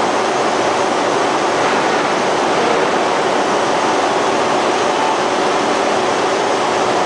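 Steady, dense noise of forging-plant machinery, loud and even throughout, with no distinct hammer blows.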